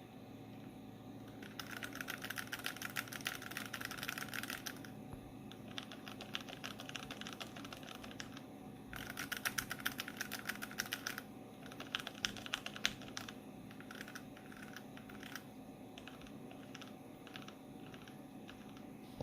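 Typing on a Sharkoon Purewriter TKL low-profile mechanical keyboard with Kailh Choc red linear switches. It starts with fast runs of keystrokes, then slows to scattered single presses in the second half.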